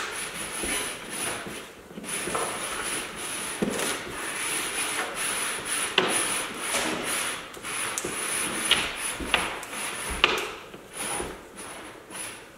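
Black air-line tubing being pushed by hand through metal EMT conduit, rubbing and scraping in uneven strokes, with a few sharp clicks.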